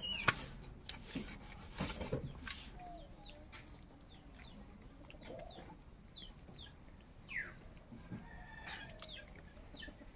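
Chickens clucking now and then, with small birds chirping and a rapid high trill in the second half. A few sharp knocks sound in the first two seconds.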